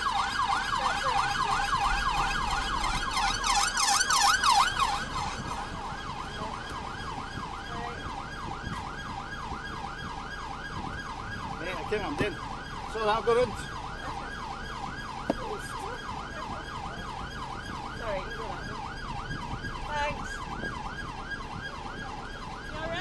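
Police car siren on a fast yelp, rising and falling about four times a second. It is loudest a few seconds in, then carries on steady and a little quieter.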